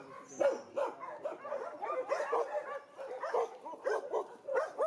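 Several dogs barking and yelping, with short calls coming several a second and overlapping.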